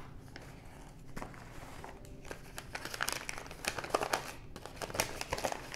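Paper envelope crinkling and rustling as it is handled and pulled open by hand, in a run of short, irregular crackles.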